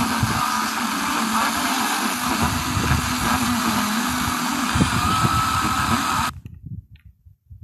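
FM radio receiver hiss and crackle: a weak, noisy signal with no clear programme. About six seconds in it cuts to near silence for about a second, typical of the tuner muting as it moves to the next frequency during a bandscan.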